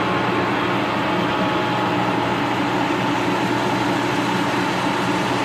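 Vintage WWII-era milling machine running at a steady speed, a continuous mechanical hum with a faint steady whine, while it warms up.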